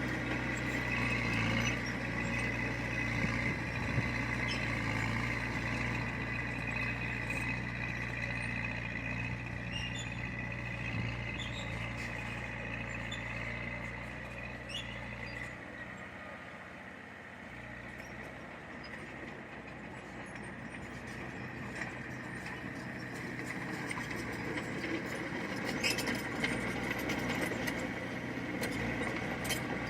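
Heavy diesel construction machinery running steadily, easing off for a few seconds in the middle and then building again.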